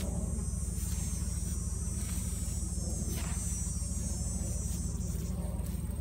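Truck engine idling with a steady low rumble, under a high, steady insect trill that thins out about five seconds in.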